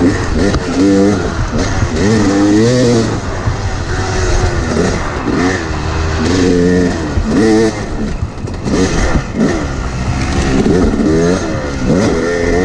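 Two-stroke dirt bike engine heard from on the bike, revving up and dropping back over and over as the throttle is worked through the turns.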